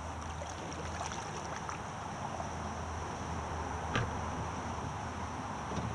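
Steady high-pitched drone of insects over a low outdoor rumble. A sharp knock about four seconds in and a lighter one near the end come from gear being handled on the plastic kayak.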